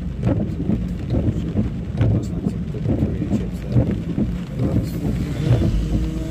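Car cabin noise while driving on a rain-soaked road: a steady low rumble of engine and tyres with the hiss of tyres on wet tarmac.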